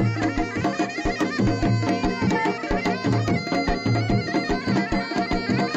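Outro music: an upbeat folk tune with a reedy wind melody over a steady drone and a regular drum beat.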